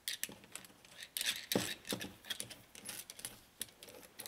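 Irregular light metallic clicks and clinks of small hardware being handled: nuts and washers threaded by hand onto the studs of a plastic inline fuse holder over the cable lugs.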